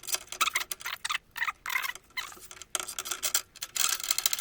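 Rapid, irregular metallic clicking and clinking from a wrench with an extension bar working a 21 mm nut on a car's front suspension.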